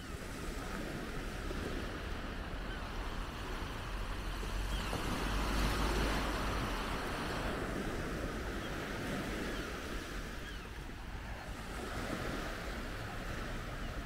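Small waves breaking and washing up a sandy shore, swelling louder about five to seven seconds in, with wind rumbling on the microphone.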